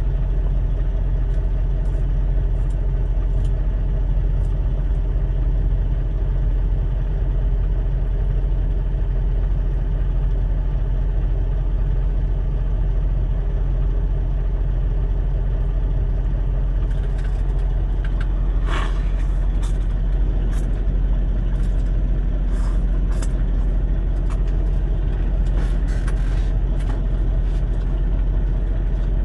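Semi truck's diesel engine idling, heard inside the cab as a steady low rumble. From a little past halfway on, light clicks and scrapes of a spoon against a bowl come in on top.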